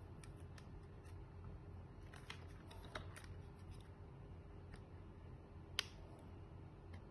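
Faint scattered clicks and taps over a low steady hum, with one sharper click near the end.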